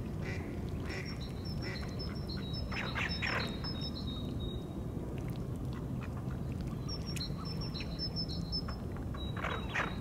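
Ducks calling, with a short group of calls about three seconds in and another near the end, over a repeated string of high, thin twittering notes and a steady low background rumble.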